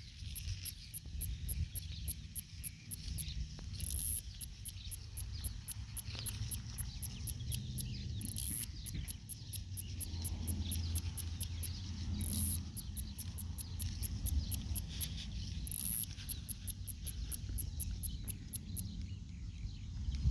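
Male northern snoring cicada (Kikihia cutora cutora) singing: runs of quick, high ticks, about four a second, each broken by a longer buzz, the phrase repeating roughly every four seconds. The ticks stop near the end.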